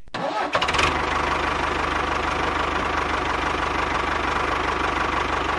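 An engine running steadily with a fast, even chugging pulse, starting about half a second in.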